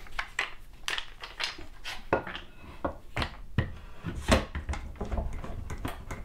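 Bar clamps being set and tightened onto a scrap board: an irregular run of clicks and knocks from the clamp parts and wood, loudest about four seconds in.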